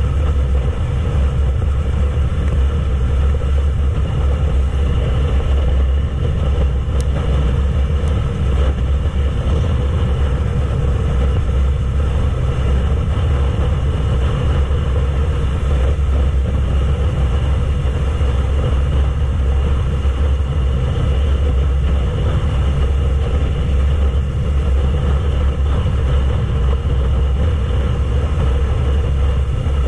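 Yamaha YZF-R3's 321 cc parallel-twin engine running at a steady cruise, mixed with heavy wind rumble on the microphone. The sound holds even throughout, with no gear changes or revving.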